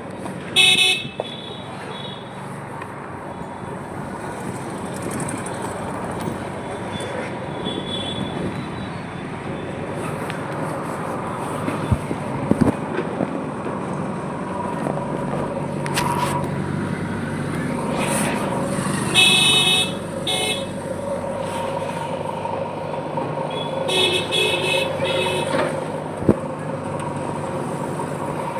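Street traffic with vehicle engines running and horns honking in short blasts: about a second in, then twice more later on. There are a few sharp knocks in between.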